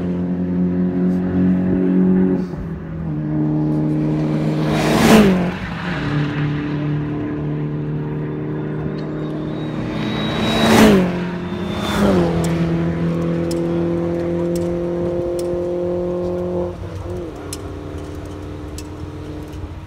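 Mini Challenge Cooper S race cars going past on the circuit, their engines holding a steady pitch that drops as each car goes by. The loudest pass-bys come about five seconds in and about eleven and twelve seconds in, and the sound falls lower for the last few seconds.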